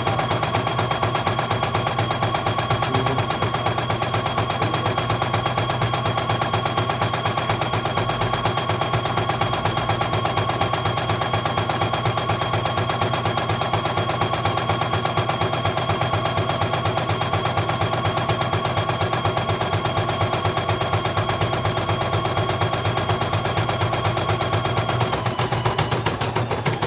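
CNY E900 portable computerized embroidery machine stitching out a test design: a rapid, even clatter of needle strokes over a steady motor whine.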